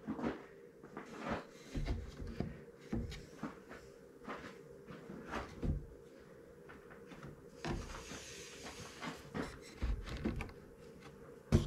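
Wooden boards being handled and set in place: scattered, irregular knocks and thuds of lumber, about one a second.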